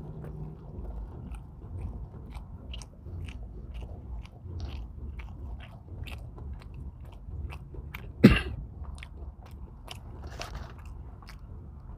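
Close-up biting and chewing of a fried chicken sandwich with crispy onion rings and bacon, with many small crisp crunches through the chewing. A single sharp knock about eight seconds in is the loudest sound.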